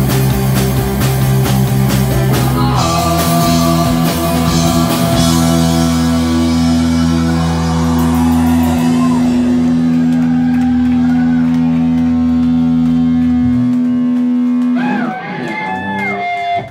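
A live rock band (electric guitar, electric bass and drum kit) finishing a song: the drumming stops a few seconds in and a final held chord rings on, thinning out as the bass drops away. Near the end the chord stops and short whoops from voices follow.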